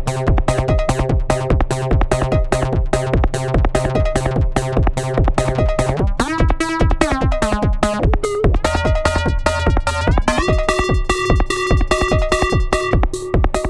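Techno-style electronic music played live on an Elektron Syntakt drum machine and synth: a fast, even drum-machine beat under sustained synth tones. About six seconds in a synth line slides up and down in pitch, and a little after ten seconds a new set of higher held tones comes in.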